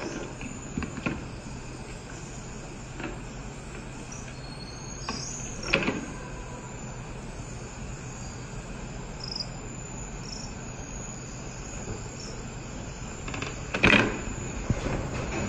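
Plastic baby toys and teething rings knocking and rattling on a wooden ledge as a young white-faced saki monkey handles them, over a steady background hum. The loudest clatter comes near the end, as the toys are jostled when the monkey leaps away.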